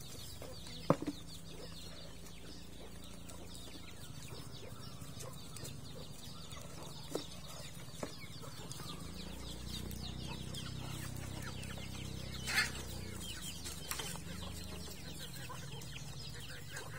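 Bantam chickens clucking softly as they peck at feed, with a few sharp taps and one brief louder call about twelve seconds in. A low steady hum underneath swells in the middle.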